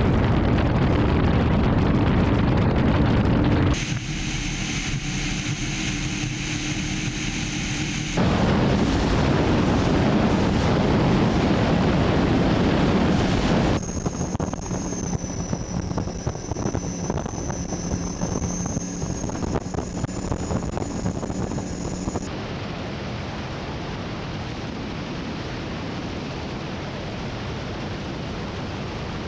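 Skater powerboat at speed: engines running under heavy wind rush on the microphone and water noise, changing abruptly several times between shots. In two stretches a high steady whine rides over the engine.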